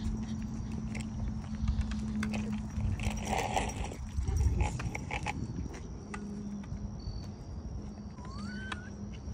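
Outdoor walking sounds: footsteps and small dogs' paws on asphalt with scattered clicks and rumbling handling noise on a phone microphone. Two short rising chirps come near the end.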